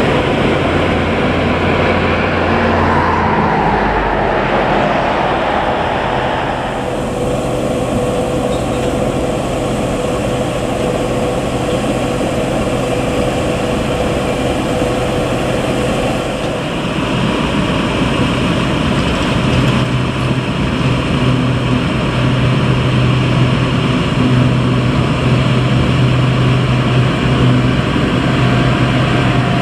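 Engines of peat works machinery running steadily, first a narrow-gauge peat railway locomotive coming along the track. The drone changes in character a few seconds in and again around the middle, and a strong low hum sets in after that.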